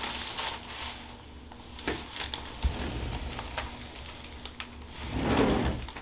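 Soft rustling and a few light clicks as hands shift a patient's head on a paper-covered headrest while setting up a chiropractic neck adjustment, then a louder rush of noise lasting about half a second near the end.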